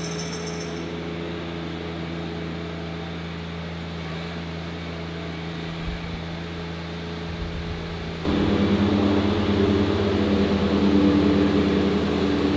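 John Deere 1025R compact tractor's three-cylinder diesel engine and leaf-collection blower running at a steady hum, stepping up sharply in loudness about eight seconds in.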